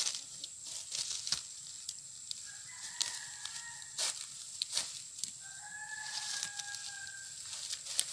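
A rooster crowing twice, each crow a held call of one to two seconds. Under it come sharp crackles and rustles of fern stems being pulled by hand.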